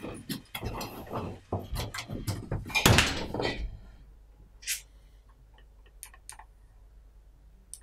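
Footsteps and the clatter of a door being shut, loudest about three seconds in. Then a few faint flicks as an instant-camera print is shaken.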